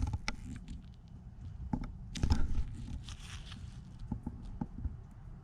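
Light rustling and scattered small clicks as small items are handled and sorted by hand.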